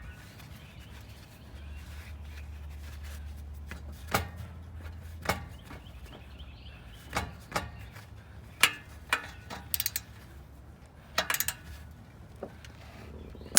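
Hand tools working on exhaust bolts under a car: scattered sharp metallic clicks and knocks of a wrench and socket, some in quick clusters, over a low hum in the first few seconds.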